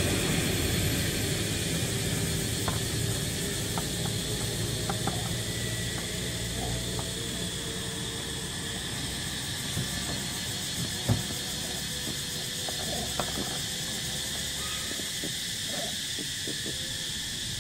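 Steady high insect chorus from the surrounding forest, with a low rumble fading away over the first few seconds. Scattered light taps and knocks come through it, the sharpest about eleven seconds in.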